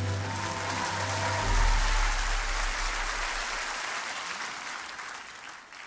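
Studio audience applauding, dying away near the end, with a low bass tone underneath in the first half.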